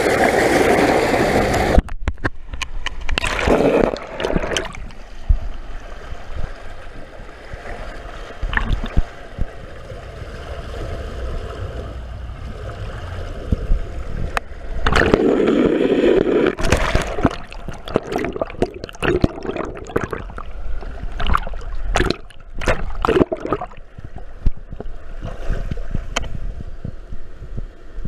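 Water rushing and gurgling around a camera riding down a water slide, with many irregular knocks. The sound changes abruptly about two seconds in and swells again in a louder rush about fifteen seconds in.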